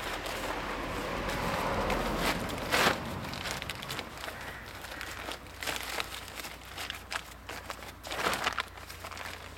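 A plastic sack being shaken open and handled, rustling and crinkling, with a sharp crackle about three seconds in and short crackles after it.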